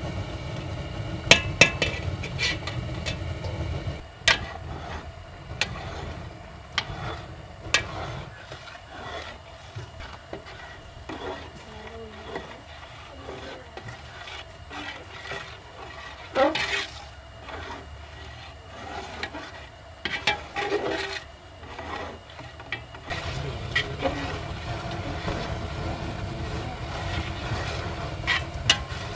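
Metal ladle stirring thick, bubbling jaggery syrup and rice in a metal pot, with irregular scrapes and clinks against the pot. It is stirred steadily so the thickening mixture doesn't stick to the bottom. A low rumble sits under the first few seconds and comes back near the end.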